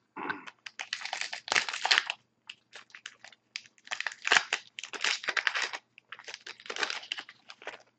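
Hockey trading-card pack wrapper being torn open and crinkled by hand, in four clusters of short crackling bursts with brief gaps between them.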